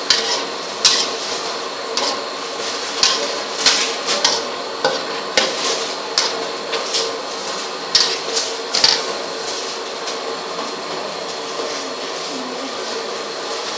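Pork and pickled lettuce being stir-fried in a pan: a utensil clinks and scrapes against the pan at irregular intervals over a steady sizzle. The clinks stop about nine seconds in, and the sizzle goes on.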